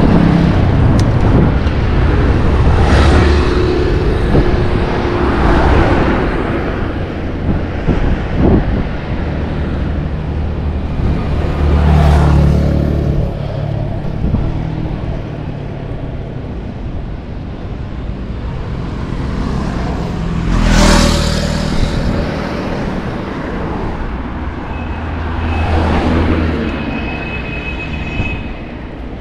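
Motor vehicles passing on a road, one after another several times, each swelling and fading with engine hum and tyre hiss over a steady road rumble.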